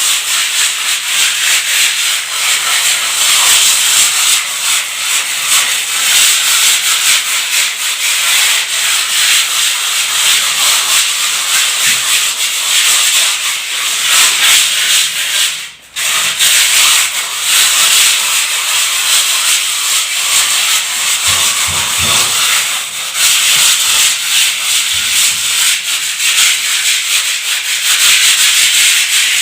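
A wall being scrubbed: a loud, continuous rasping of rapid strokes that stops briefly about 16 seconds in and then carries on.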